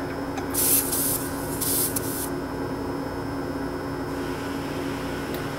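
Two short hisses of compressed air escaping at a tire valve stem as an LED AirGuard pressure-alert cap is threaded onto it, the valve letting air out until the cap seats.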